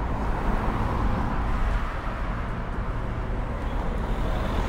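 City street traffic noise: a motor vehicle's engine running close by, with a steady low rumble.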